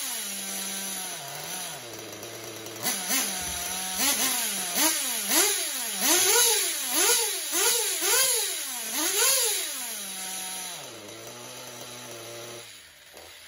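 Novarossi P5 nitro two-stroke glow engine in an RC buggy idling, then revved in about ten quick throttle blips, each rising and falling in pitch, before dropping back to a low idle. It is shut off and dies away at the very end.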